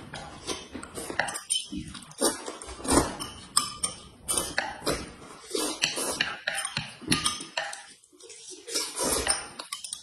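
Close-up eating noises: noodles being slurped and chewed, with chopsticks and a spoon clinking against a plate and a glass bowl in short irregular bursts.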